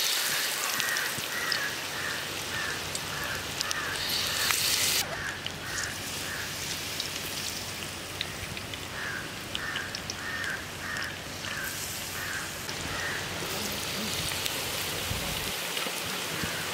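Batter-coated cauliflower pieces deep-frying in a pan of hot oil: a steady dense sizzle with fine crackles, louder for the first few seconds.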